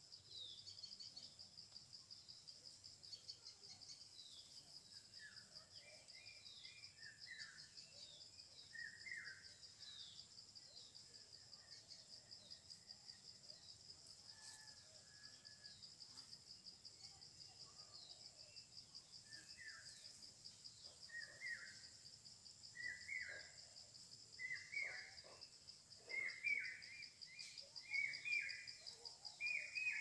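A steady, rapidly pulsing high insect trill, with a bird's short repeated chirps that become louder and more frequent in the second half.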